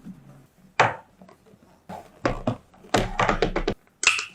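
Small plastic toy pieces being handled and set in place, giving a series of sharp taps and clacks, with a quick run of clicks about three seconds in.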